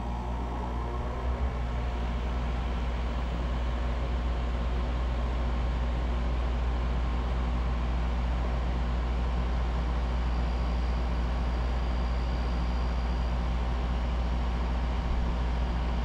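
Bryant Preferred Series 3-ton central air conditioner's outdoor condenser unit starting up and running: a steady low compressor hum, with the condenser fan motor winding up to speed in the first second or so.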